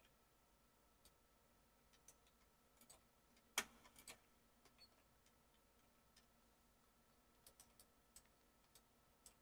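Faint, scattered clicks of a computer mouse and keyboard against near silence, the loudest one about three and a half seconds in.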